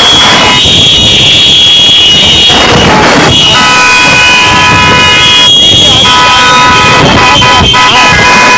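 Several vehicle horns held and sounding together over loud, noisy commotion with voices. The horns drop out about half a second in and come back steadily about three and a half seconds in.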